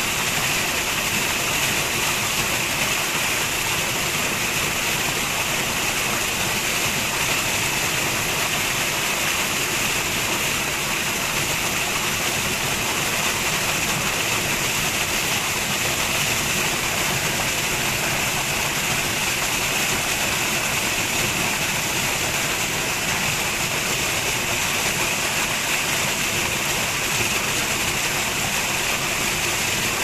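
White water rushing and splashing over rocks in a small cascade: a steady, unbroken rush.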